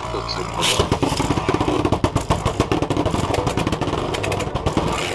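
3D-printed Beyblade spinning tops rattling and scraping in the plastic stadium: a fast, dense run of clicks as they strike each other and the floor, growing busier about a second in. One top, Volst, is spinning off balance and wobbling.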